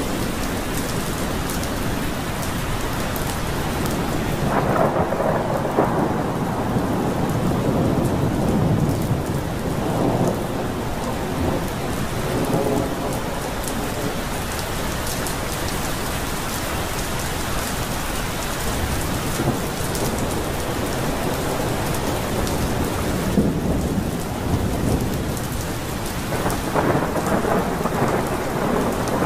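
Pouring rain falling steadily, with rolling thunder rumbling twice: a long roll a few seconds in, and another near the end.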